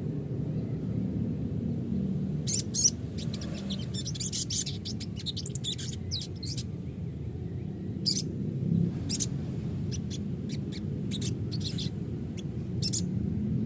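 Sogon bird giving short, very high-pitched chirps and trills in scattered bursts over a steady low hum. It is a lure recording meant to set other sogon birds singing.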